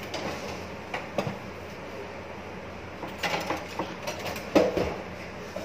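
Scattered light clicks and knocks of kitchenware being handled on a counter: the plastic parts of an electric chopper and a glass bowl of onion pieces. The loudest knock comes about four and a half seconds in.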